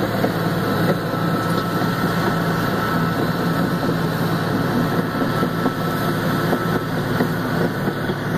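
Engine of a Caterpillar crawler bulldozer running steadily as it works, a continuous even drone heard at a distance.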